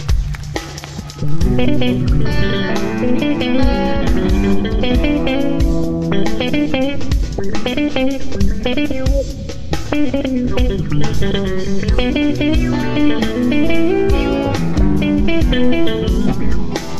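Live instrumental jazz-rock: an electric guitar plays melodic lead lines over bass guitar and a drum kit. The full band comes in louder about a second in.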